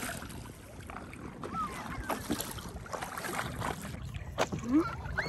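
Water sloshing and splashing against a paddle board as it is paddled through choppy lake water, with irregular paddle splashes and wind buffeting the microphone.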